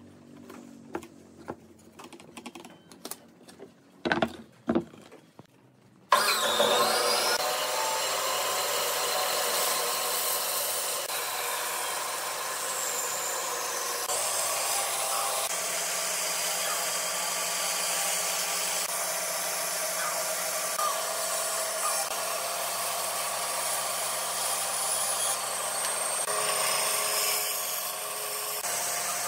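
A few scattered knocks and taps. From about six seconds in, a bandsaw runs steadily with its blade cutting along a curved line through a wooden board.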